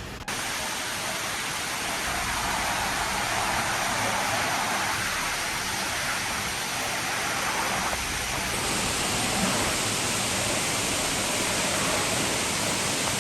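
Loud, steady rushing of water, as of heavy rain or floodwater pouring, cutting in suddenly a moment in.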